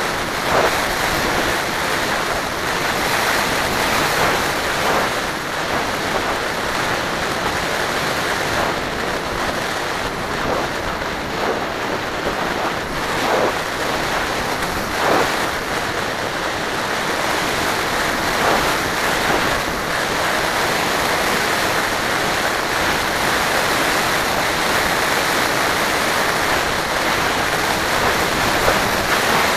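Steady rushing noise of air and spinning propellers picked up by an FPV drone's onboard camera in flight, with short swells every few seconds.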